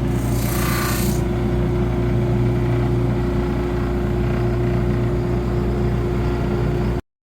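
Electric power tool motor running steadily, with a short burst of hissy cutting into wood in the first second, then cutting off suddenly near the end.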